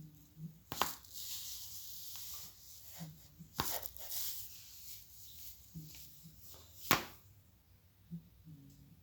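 Neck joints cracking three times, sharp pops about three seconds apart, with rustling in between.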